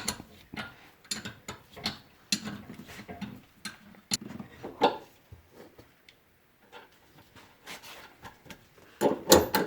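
Irregular clicks and knocks of hand tools and parts being worked on a car's rear suspension, with a louder cluster of knocks near the end.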